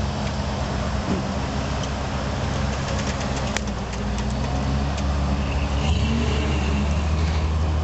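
Engine of a lifted Toyota pickup rock crawler running at low speed as it creeps over rocks, getting a little louder about five seconds in. A single sharp click about halfway through.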